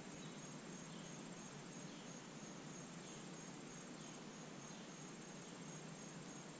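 Crickets chirping: a high, pulsed note repeating about twice a second over a steady background hiss of the swamp.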